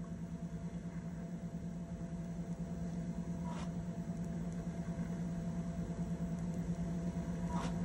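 Steady low hum from a tabletop sound filmstrip viewer running between narrated frames, with a faint click about three and a half seconds in.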